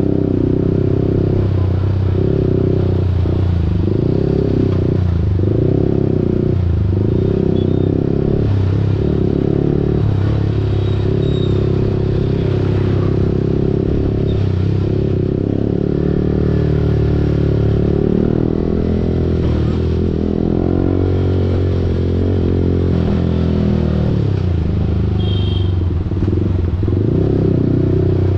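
Yamaha R15 V4's single-cylinder engine through an Akrapovic full-system exhaust, on the move, its revs dipping and rising again and again as the throttle is blipped and gears are changed. Later the revs swell more slowly.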